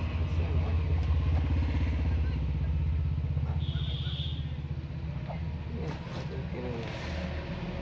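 A motor vehicle engine, such as a passing motorcycle, running with a fast low pulse. It is loudest in the first three seconds and then eases off. A brief high tone sounds about three and a half seconds in.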